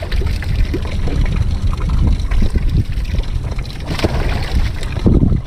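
A stream of water pouring from a bass boat's hull outlet into a mesh fish-weigh bag, splashing through the mesh, with wind buffeting the microphone.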